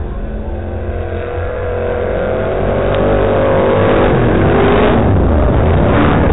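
Two race car engines revving as the cars drift on an ice track, rising in pitch over a few seconds and growing louder as they come closer.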